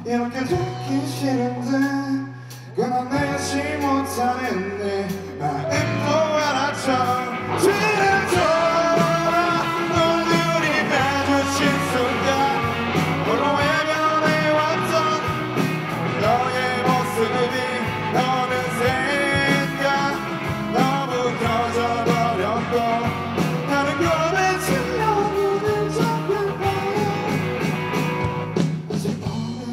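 Live rock band playing: electric guitars, bass guitar and drum kit, with a sustained lead melody on top. The band is sparser for the first few seconds and fills out from about six seconds in.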